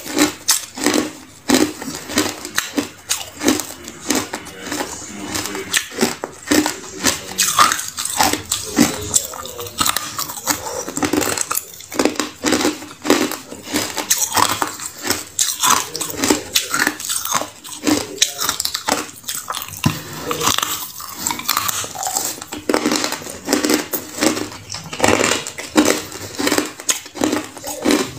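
A person biting into and chewing a block of ice: dense, sharp crunching and cracking, several crackles a second without a break.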